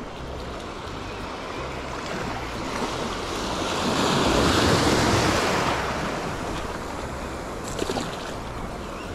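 A sea wave swells and breaks over the rocks, the surf rising to its loudest about halfway through and then washing away, with wind buffeting the microphone. Near the end come a couple of short splashes as a hooked bass thrashes at the surface.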